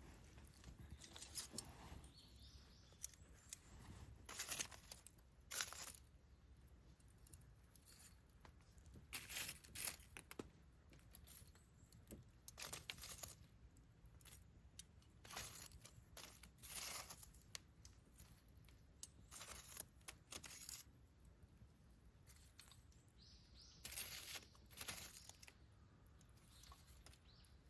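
Wood campfire crackling, with irregular sharp snaps and pops from the burning wood.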